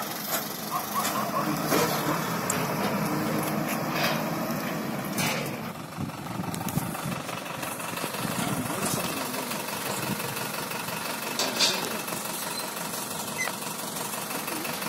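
Diesel engine of a tarp-covered Tata light truck running steadily as the truck pulls away and drives off.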